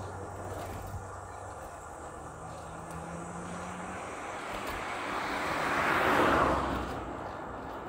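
Steady rush of wind and riding noise from a moving bicycle, with a motor vehicle passing: its noise swells to a peak about six seconds in, then fades.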